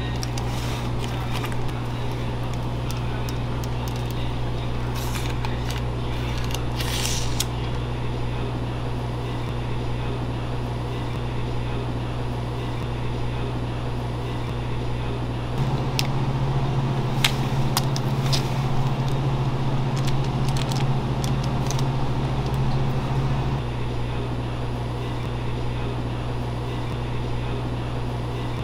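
Steady machine hum, with a second, louder hum joining about halfway through for several seconds, and a few light clicks.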